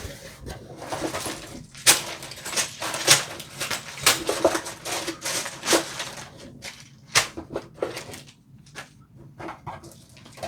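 A sealed cardboard kit box being opened by hand: a run of crinkling, scraping and sharp clicks as the flaps and the plastic bags of parts inside are handled, busiest in the first half and thinning to scattered clicks later.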